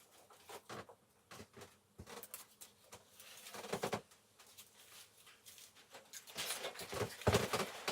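Scattered rustling and light knocks of things being handled, with a busier stretch near the end.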